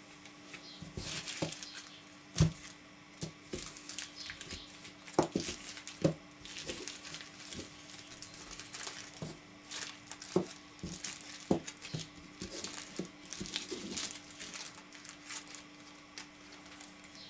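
Small plastic bags crinkling as they are handled, with irregular light clicks and taps as bagged metal tripod screw adapters are set down on a table; the loudest tap comes about two and a half seconds in.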